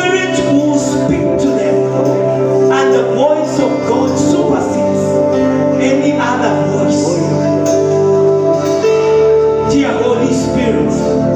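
Gospel music with singing over sustained, held chords.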